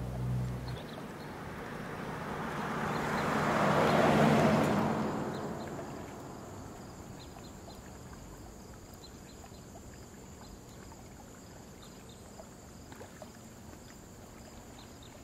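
A boat passing on the water: a rushing sound swells to a peak about four seconds in, then fades away into faint, steady outdoor background.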